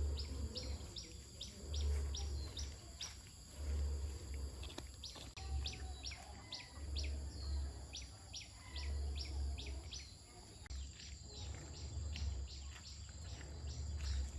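A bird chirping over and over, about three short, falling chirps a second, with a low rumble coming and going underneath.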